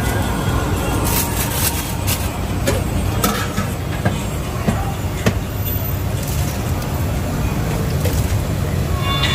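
Steady street traffic rumble with a few light clinks of a ladle against steel pots.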